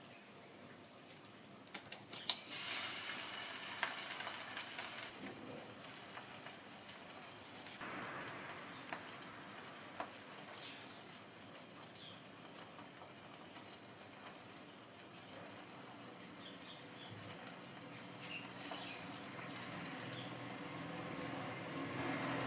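Egg and bread frying in a skillet: a steady sizzle with a few light clicks.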